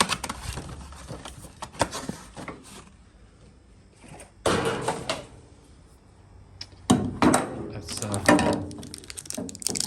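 Knocks, clicks and rustling as oil-change parts and tools are handled by hand, in two louder clusters around halfway and again near the end.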